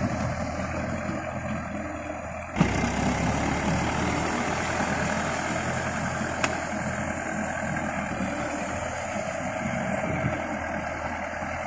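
Mahindra 555 tractor's diesel engine running steadily under load as it drives a rotavator through a flooded paddy field. A sudden thump comes about two and a half seconds in, and a single sharp click near the middle.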